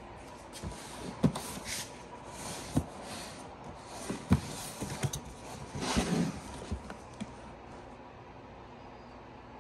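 Cardboard shoe box being handled and its lid worked open by hand: scattered sharp knocks and scrapes of cardboard, with a longer rustle about six seconds in.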